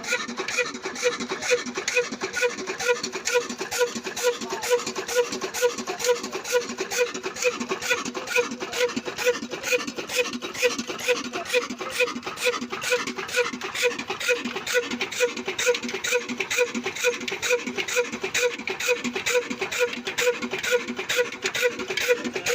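Old black Ruston diesel engine running steadily, with a regular beat of strong pulses and a fast clatter between them.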